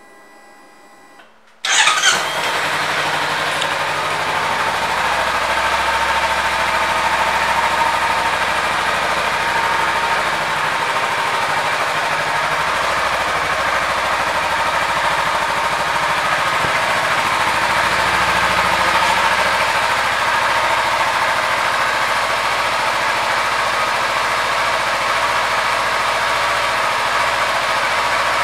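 A 2016 Kawasaki Ninja 300's parallel-twin engine is started with the electric starter about two seconds in, catches at once, and then runs steadily.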